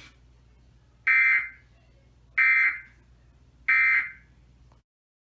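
Emergency Alert System end-of-message signal: three identical short bursts of buzzy SAME digital data, about 1.3 seconds apart, marking the end of the broadcast warning.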